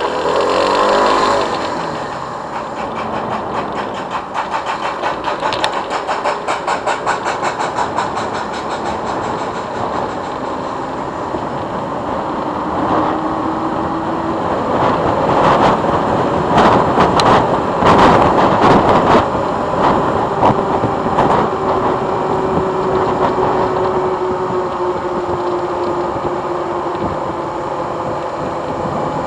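Motorcycle engine running on the move, with wind rushing over the microphone. The engine's pitch drops about a second in, and the wind turns loud and gusty midway.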